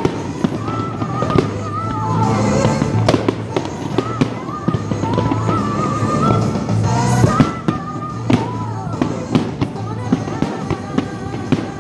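Fireworks shells exploding in the sky, a string of sharp, irregular bangs and pops about once or twice a second. Music plays underneath.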